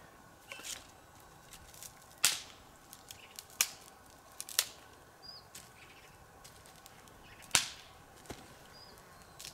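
Dry wood cracking in sharp, irregular snaps: four loud cracks a second or more apart, with fainter ticks between them.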